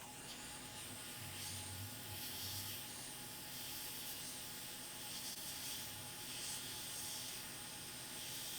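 Hot air rework station blowing a steady, faint hiss while the USB-C connector is heated for desoldering from the laptop board.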